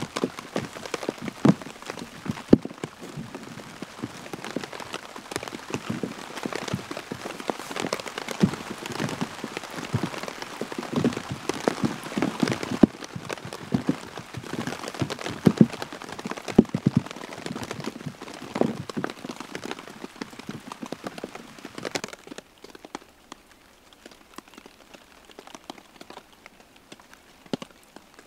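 Heavy rain with many separate drops hitting close by. About 22 seconds in it eases abruptly, leaving only scattered drops.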